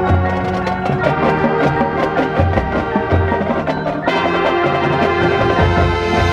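High school marching band playing its field show: sharp percussion strokes over sustained wind and brass chords, the sound growing fuller and brighter about four seconds in.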